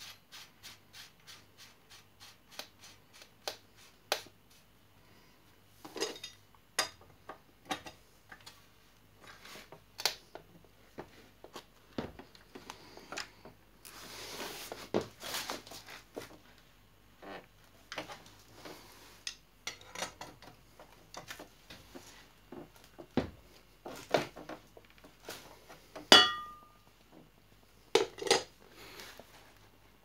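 Metal clicks, clinks and rubbing from hands handling the bottom bracket and crank parts on a bicycle frame. A run of evenly spaced light ticks comes first, then irregular knocks, a stretch of scraping near the middle, and one ringing metallic clink near the end.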